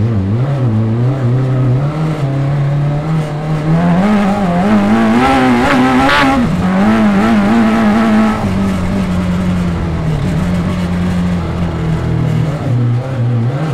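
Suzuki Hayabusa motorcycle engine of an off-road buggy pulling over sand whoops, its pitch wavering up and down with the bumps. The revs climb through the middle and settle lower and steadier after about eight seconds.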